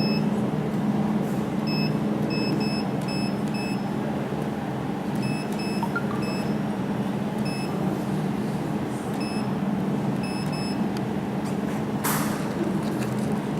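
Jewelry laser welding machine running with a steady low hum, broken by short high-pitched beeps that come in quick runs of several at a time. A brief hiss about twelve seconds in.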